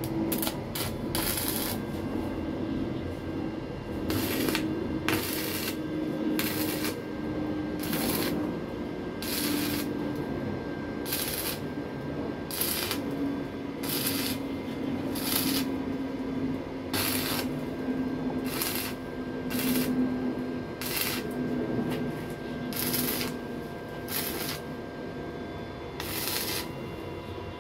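Electric arc welding on a steel motorcycle frame: the arc crackles in about twenty short bursts of roughly half a second each, tack- or stitch-welding. Under them runs a faint steady hum that slowly sinks in pitch.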